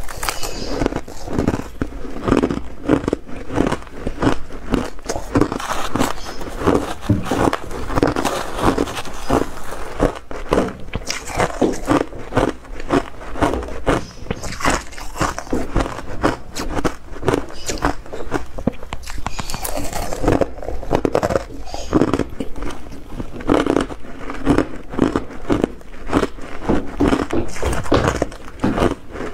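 Crushed ice being bitten and chewed close to a lapel microphone: a continuous run of rapid, loud crunches and crackles.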